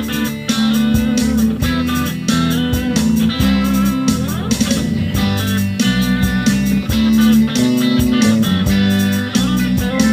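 Live band playing an instrumental passage: guitars, accordion and fiddle over a bass line with a steady beat.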